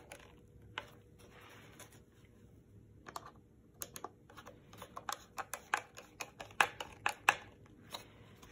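Screwdriver working the rail screws on a Team Wendy helmet: an irregular run of small clicks and taps as the screws are tightened down and the helmet is handled, a few louder clicks about seven seconds in.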